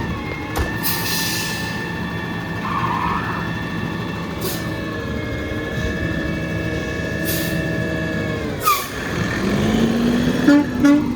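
Garbage truck making a steady high-pitched whine that holds one pitch for about eight seconds, then slides down and cuts out; a lower whine then rises near the end. A few short hissing bursts come over it.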